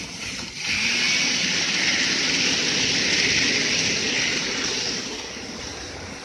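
N-gauge model EF64 electric locomotive and container wagons running past close by: a steady whirring running noise of the motor and wheels on the track. It swells about a second in and fades after about five seconds as the train moves away.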